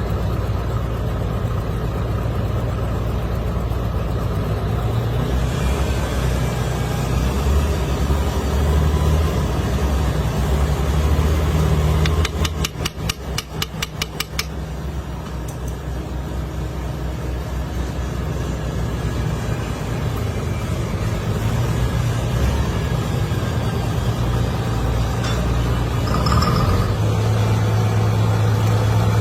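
A motor-driven machine running with a steady low hum, its pitch stepping up and down at times. Roughly halfway through, a quick run of about a dozen rapid ticks lasts about two seconds.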